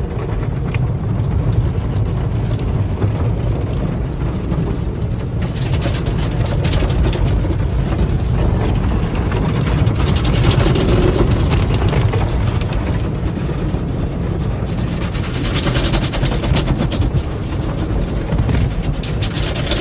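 Automatic car wash heard from inside the car's cabin: red cloth brushes slap and scrub against the windshield and body while water sprays, a steady loud low noise. Rapid slapping hits join in from about five seconds in.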